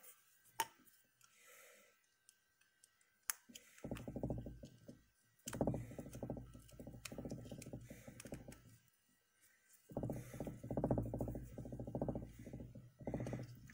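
Small screwdriver turning the brass terminal screws of a plastic lamp socket: a couple of sharp clicks, then long runs of gritty clicking and scraping as the screws are driven down onto the wires.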